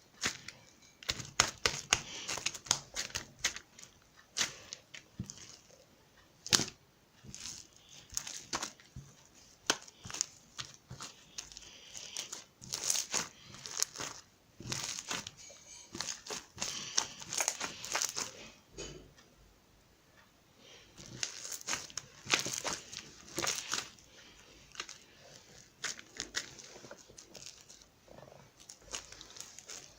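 Slime being played with by hand: irregular popping and crackling clicks with short squishy crackles, pausing briefly about two-thirds of the way through.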